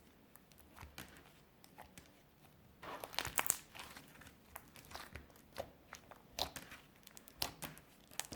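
Clear slime being squeezed and worked by hand, crackling and popping with sharp clicks. A dense run of crackles comes about three seconds in, followed by scattered pops.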